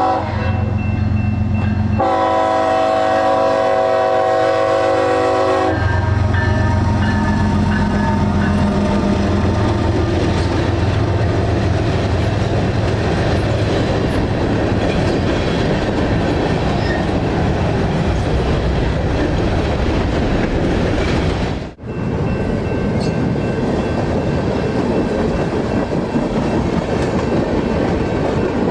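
Diesel freight train passing a crossing: the locomotive horn sounds a chord for about four seconds, then a fainter, lower horn tone follows. Then comes a steady rumble and clatter of the freight cars rolling over the rails, with a brief break about 22 seconds in.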